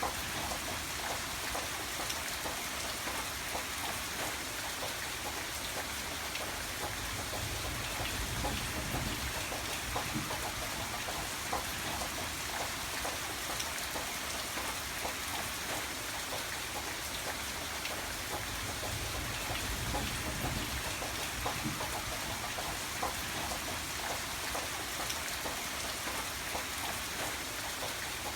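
Steady heavy rain, a dense hiss of drops with small individual drop ticks all through. A low rumble swells up twice, about eight and twenty seconds in.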